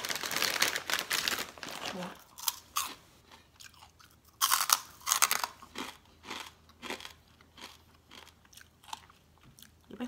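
A plastic bag of pork rinds rustling as they are shaken out, then crisp crunching as the fried pork rinds are bitten and chewed, one crunch after another.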